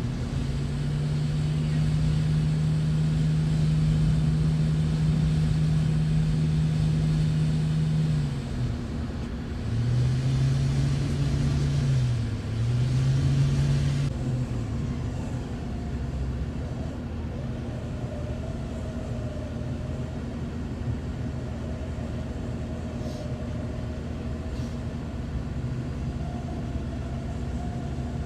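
Off-road 4x4 engine held at steady raised revs for about eight seconds, then held up again for a few seconds with two brief dips, before settling back to a lower, steady running sound.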